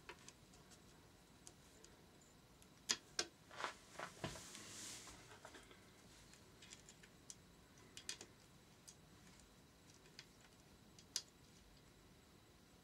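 Faint, scattered metallic clicks and taps of a hand tool and bolt as the rear cam chain guide is bolted into a Yamaha XT600 engine casing. There is a small cluster of clicks about three to four seconds in, followed by a brief rustle, and single ticks later.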